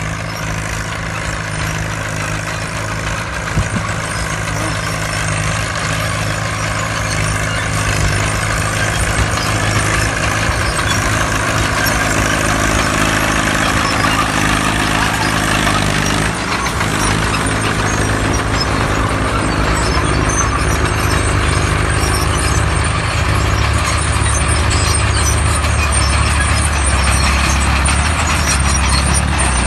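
Several vintage OM crawler tractors running steadily as they pull plows. A deeper engine note grows stronger about three-quarters of the way through as one tractor comes close.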